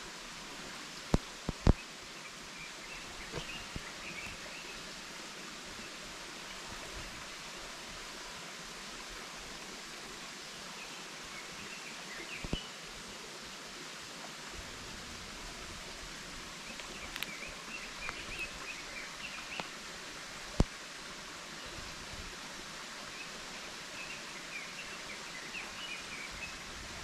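Forest ambience: a steady hiss of background noise with small birds chirping in short bursts several times, and a few sharp clicks or knocks, the loudest about a second and a half in and again about two-thirds of the way through.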